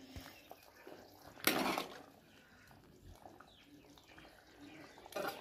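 Chickpea curry being ladled from the pot onto a plate: soft liquid pouring and small clinks of the ladle, with a short louder rush about one and a half seconds in and another just before the end.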